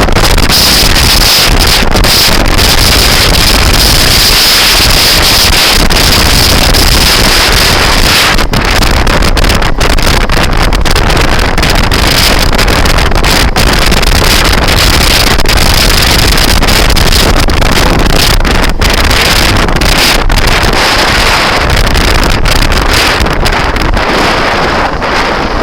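Heavy wind buffeting on the microphone of a moving scooter, loud and nearly constant, with a steady high-pitched tone running through it.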